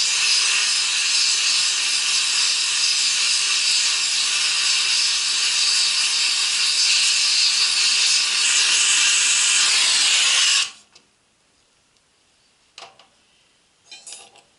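Oxy-acetylene gas welding torch flame hissing steadily, shut off suddenly about eleven seconds in, followed by a couple of faint clicks.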